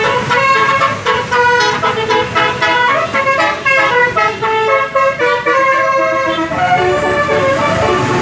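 A tour bus's multi-tone 'telolet' horn playing a melody, the tones stepping quickly from note to note without a break.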